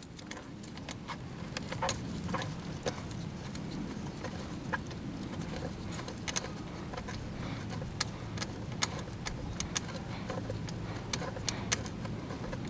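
Irregular light clicks and clinks of a ring wrench on a spark plug socket as a tight spark plug is turned out of the cylinder head a little at a time, over a low steady rumble.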